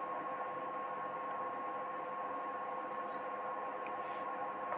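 Steady background hum and hiss with a constant high tone, with no distinct events: electrical hum and room tone.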